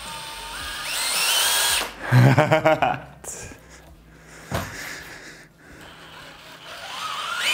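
Cordless drill motor, rigged to drive the wheel of a homemade scooter, whining up in pitch as its trigger is pulled, then a second, louder burst of running about two seconds in.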